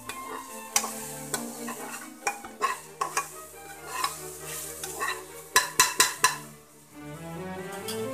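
Metal spatula scraping and knocking around the inside of an aluminium pressure cooker while onion and ginger-garlic paste fry and sizzle in oil. The strokes come irregularly, with a quick run of about four loud scrapes a little past halfway, and soft background music runs underneath.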